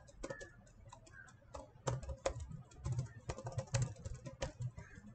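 Typing on a computer keyboard: irregular key clicks, light at first and louder from about two seconds in.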